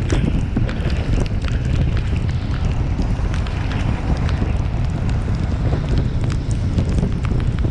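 Wind rushing and buffeting over the microphone of a moving ride, a steady low rumble, with many scattered sharp ticks.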